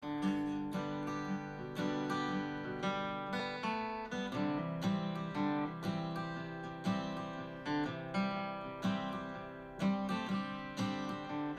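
Acoustic guitar music, strummed chords with a steady rhythm.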